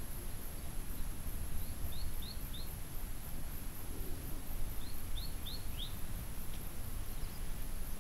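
Outdoor ambience: a steady low noise and a constant thin high whine, with two quick runs of three or four short high chirps, about two seconds in and again around five seconds.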